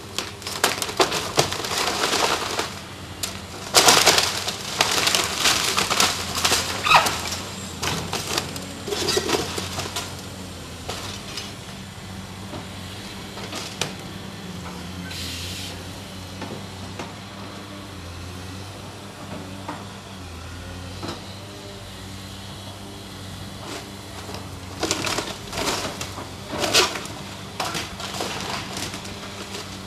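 Caterpillar excavator tearing into a building's timber roof structure: wood cracking and splintering and debris crashing down in bursts through the first ten seconds and again near the end, over the steady hum of the excavator's engine.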